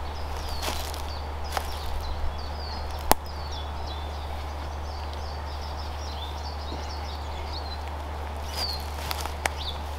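Small woodland birds singing and twittering, with a few sharp clicks and rustles from close by, the loudest a single snap about three seconds in.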